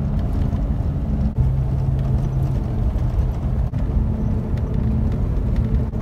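Steady road and engine noise heard inside a moving vehicle's cabin at highway speed, a low rumble with an engine hum that shifts in pitch a few times.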